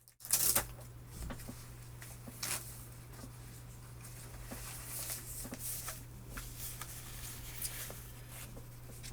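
Continuous typing on a mechanical keyboard with Tealios V2 linear switches: a dense patter of key presses, with a few louder strokes near the start and about two and a half seconds in.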